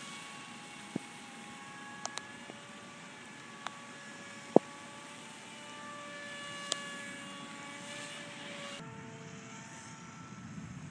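Radio-controlled Litehawk Swift amphibious plane flying overhead: a steady, thin propeller whine that drifts slightly in pitch and settles lower near the end. Several sharp clicks sound over it, the loudest about halfway through.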